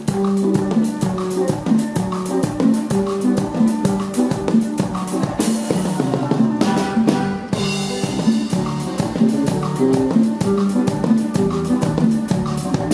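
A norteño band playing live on a drum kit, bass and stringed instruments, with a steady driving beat under a repeating bass line. Cymbal crashes ring out about five and seven seconds in.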